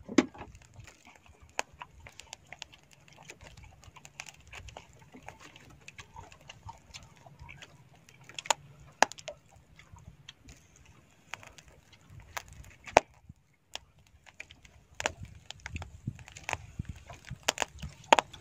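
A person eating grilled squid: irregular chewing and lip-smacking clicks, with small knocks as pieces are picked from the dish.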